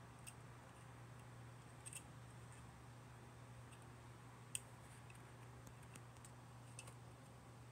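Near silence with a low steady hum, broken by a few faint sharp clicks of plastic model-kit parts and runners being worked by hand; the loudest click comes about four and a half seconds in.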